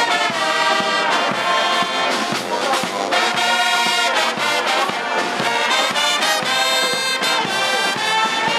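Brass band music: trumpets and trombones playing held chords that change about every second.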